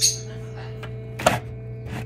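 Steady hum of a small egg incubator's fan, with a short high cheep at the start and a louder squawk about a second in from a newly hatching Moluccan cockatoo chick.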